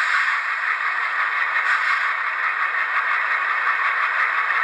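LokSound Select sound decoder in an HO-scale Bowser ALCO C-628 model diesel locomotive, playing its diesel engine sound through the small factory dual speakers. It is a thin, steady, rattly hiss with almost nothing in the low end.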